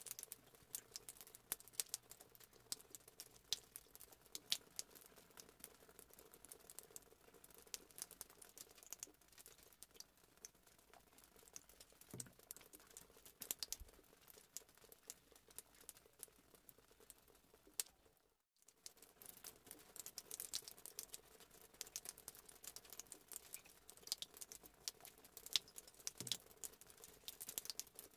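Faint, scattered light clicks and taps of a spoon and baking pans being handled, over a low steady hum, with a moment of dead silence about two-thirds through.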